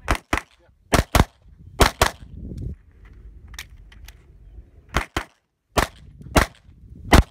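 Pistol shots fired in quick pairs, about eleven shots in all, with a pause of about three seconds in the middle.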